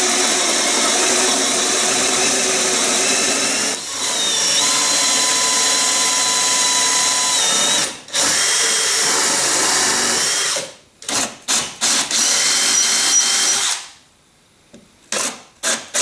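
Hand-held power drill in a drill guide boring a flat-bottomed recess with a Forstner bit into birch plywood, the motor running steadily under load with its pitch shifting as it cuts. Near the end the drill runs in short stops and starts.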